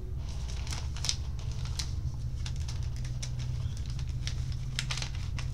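Sealed baseball card packs being handled and shifted in a stack, giving a run of irregular small clicks and crinkles of the wrappers, over a steady low hum.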